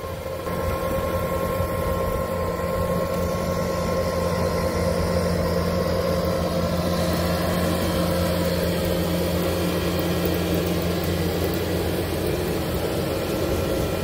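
Bobcat T650 compact track loader's diesel engine running steadily under load while it works loose soil with a hydraulic ground-working attachment.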